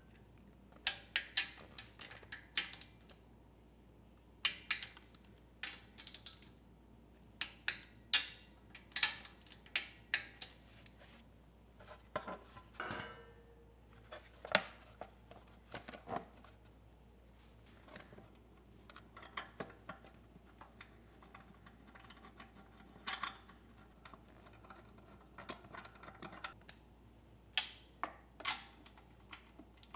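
Irregular sharp metallic clicks and clinks of hand tools and engine parts during small-engine reassembly: a ratchet and socket turning bolts, and metal parts knocked and set in place, some clicks coming in quick runs.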